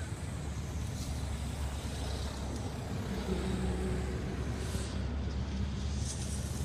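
A motor vehicle's engine running: a steady low rumble with a hum that grows louder a few seconds in and then eases off.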